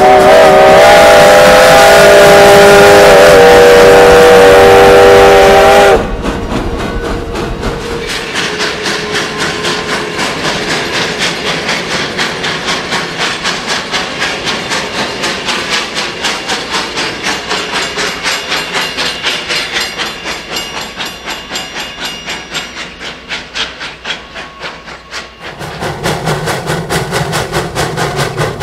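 Steam locomotive's chime whistle blowing one long chord of several notes for about six seconds, cut off sharply. Then the freight train rolls past with a fast, even beat. Near the end a louder, deeper sound takes over as the locomotive works upgrade.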